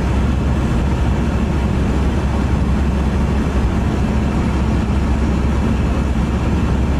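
A vehicle engine running steadily: a constant low rumble that does not change.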